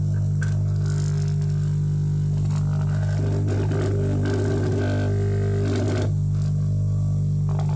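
Steady low electric hum with overtones, unchanging in level, with some rougher rattling texture in the middle.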